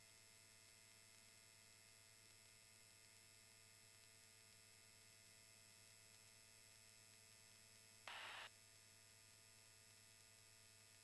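Near silence: a faint steady electrical hum, with one short burst of hiss about eight seconds in.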